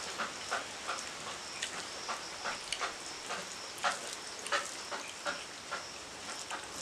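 Eating with the hands from steel plates: irregular soft wet clicks and squelches as fingers mix and gather rice and chicken curry.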